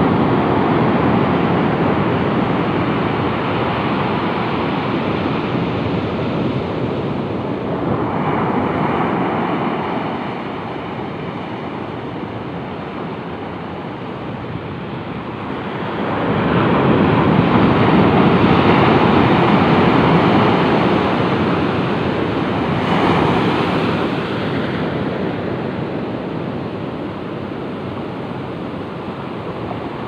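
Ocean surf breaking and washing up a sandy beach, the rush of water swelling and easing as the waves come in, loudest a little past halfway through.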